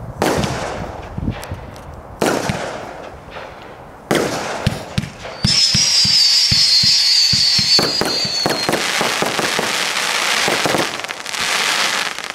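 Zeus Fireworks Twister, a large-bore 36-shot vertical-firing aerial barrage, firing. There are three sharp reports about two seconds apart, then a quick run of low thumps, then a loud whistle that falls slightly in pitch for about three seconds over dense crackling.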